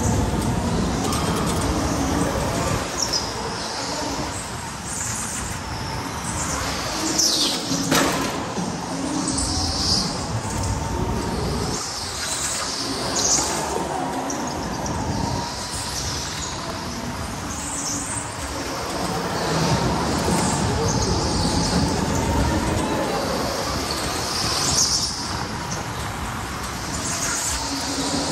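Electric go-kart driven hard on a smooth indoor track: the motor's whine rises and falls with speed, the tyres squeal again and again through the corners, and the kart rumbles over the floor. A sharp knock comes about eight seconds in.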